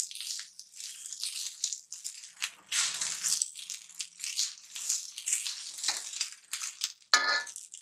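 A red-headed spatula scraping and turning boiled rice around a large iron kadhai in irregular strokes. The rice is being mixed gently through cumin fried in ghee.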